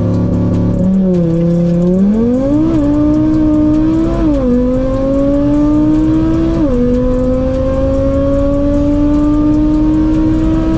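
VW Golf 7 R with a tuned 2.5-litre turbocharged five-cylinder launching hard: it holds at launch revs for about a second, then the engine note climbs through the gears. Three quick upshifts each drop the pitch, and it pulls on steadily in fourth gear.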